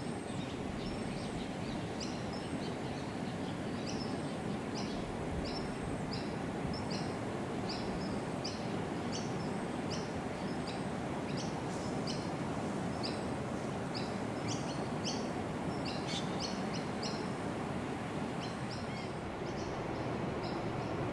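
A bird repeats short, high chirps a little under twice a second over a steady rushing background noise.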